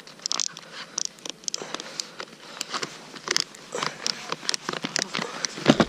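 Snowboard binding ratchet straps clicking irregularly as they are tightened, over a rustling hiss.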